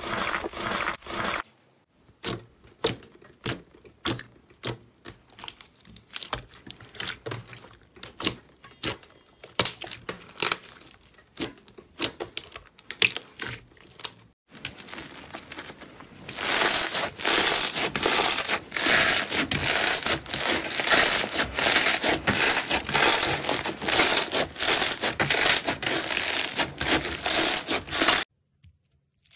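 Crunchy slime being pressed and squeezed by hand, giving scattered sharp crackles and pops. About halfway through, after a short pause, it turns into a dense, loud crackling that cuts off suddenly near the end.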